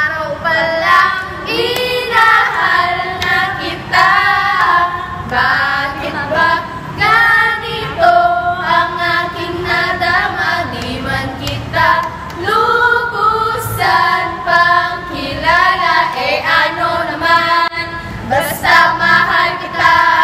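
A group of young women singing a song together, loud and held on long notes.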